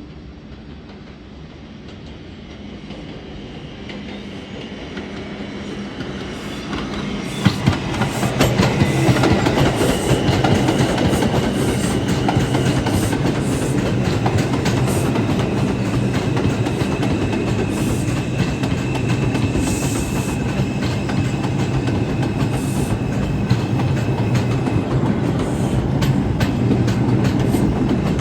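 R142 subway train running on the rails. The rumble and wheel clatter build over the first eight seconds or so, then hold loud and steady, with a thin high whine above them.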